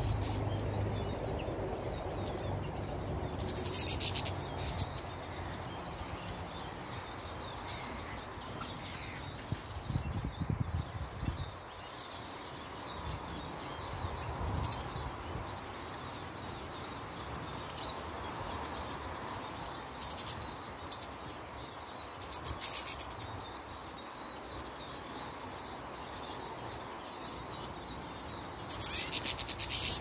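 Small garden birds chirping and twittering continuously around the feeders. Several short whirring bursts, at about 4, 14, 20, 22 and 29 seconds in, are wings as birds take off and land.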